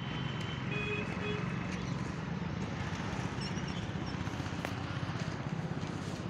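An engine running steadily with a fast, low chugging pulse.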